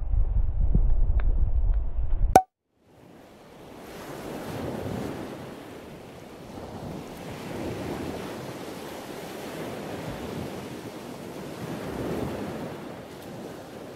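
Wind buffeting the microphone as a low rumble, cut off abruptly with a click a couple of seconds in. Then surf washing against the shore, swelling and fading every few seconds.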